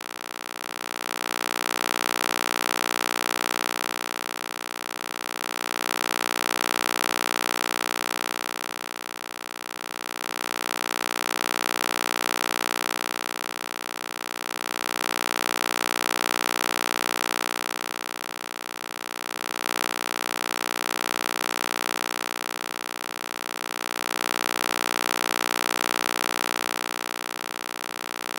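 Synthetic EMDR stimulation sound: a steady electronic drone of many held tones with a hiss above it, swelling and fading about every four and a half seconds, with a fast flutter throughout.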